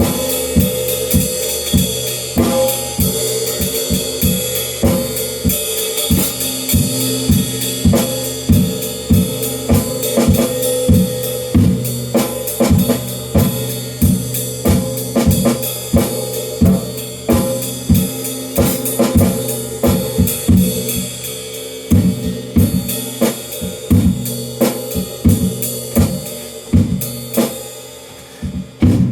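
Drum kit played in a steady groove: bass drum, snare and hi-hat strikes under a continuous wash of ringing cymbals. Near the end the cymbals drop away briefly before the beat carries on.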